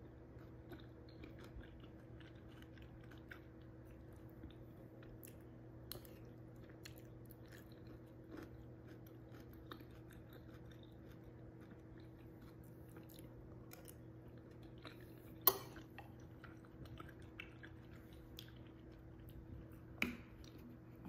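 Soft, close chewing of wontons in soup, with many small wet mouth clicks, over the steady hum of an electric fan. A sharp clink sounds about fifteen seconds in and another near the end, the metal spoon knocking the ceramic bowl.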